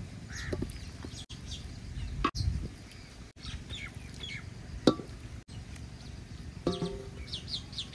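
Hens clucking and small birds chirping over a faint steady background, with a sharp knock past the middle.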